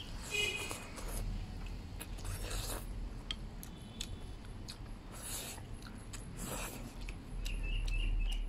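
Eating from a porcelain rice bowl: chopsticks shovelling and scraping rice into the mouth in a few short bursts, with light clicks of chopsticks on the bowl and chewing. Birds chirp near the end.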